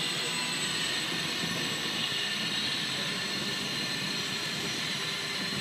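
Small electric motor and propeller of an indoor Depron model airplane in flight, a steady whine.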